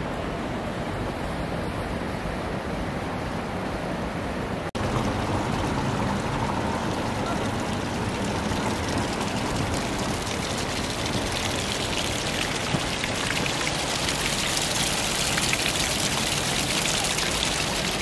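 Running water: a steady rush of flowing water, broken by a brief cut about five seconds in, then louder with more hiss in the second half, where hot-spring water streams down a rock face.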